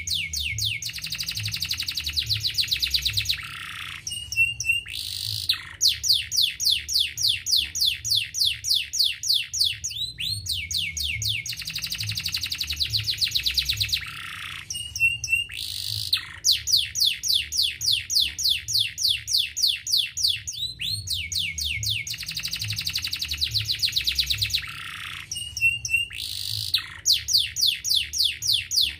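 Domestic canary singing: long, fast trills and rolls of repeated high notes broken by short pauses, the same song sequence coming round about every eleven seconds.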